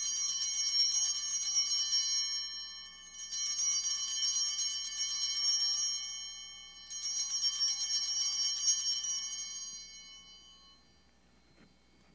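Altar bells (Sanctus bells) rung three times, each a shaken, shimmering peal that fades away. They mark the elevation of the consecrated host.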